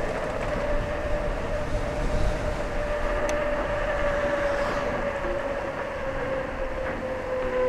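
Electric e-bike hub motor whining steadily under way, its pitch easing slowly lower through the second half. Under it, wind buffets the microphone with a low rumble.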